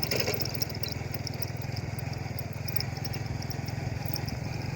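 A vehicle engine running steadily, with a fast even low pulse.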